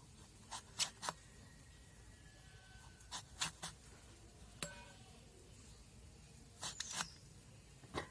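Eggplant being sliced with a blade: sharp crisp cuts in quick groups of two or three, a few seconds apart.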